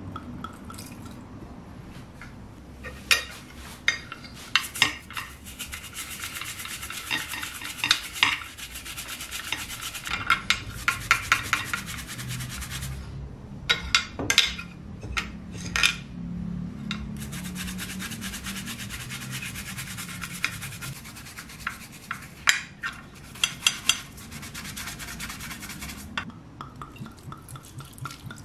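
Revolver grip panels being scrubbed in a glass dish with a toothbrush and a sudsy cloth: quick rubbing strokes, with many sharp clicks and knocks of the grips and brush against the glass.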